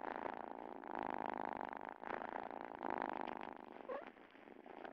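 Domestic cat purring close up, a rapid buzzing purr that swells and breaks off with each breath, while it is excited by valerian. A brief squeaky sound comes about four seconds in.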